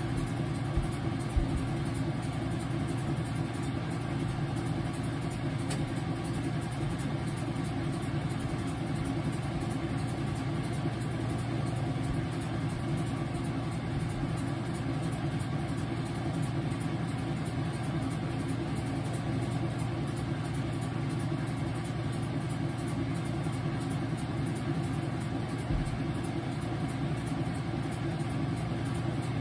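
Whirlpool washing machine running mid-cycle on a load of towels and dish rags: a steady motor hum, with two small knocks about a second in.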